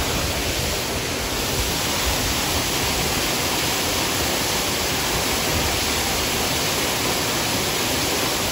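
Steady rush of water pouring down an artificial rock waterfall into the exhibit pool.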